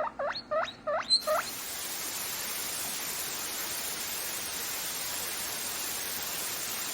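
Guinea pig squeaks, each rising sharply in pitch, about three a second, stop about a second in. A steady static hiss follows.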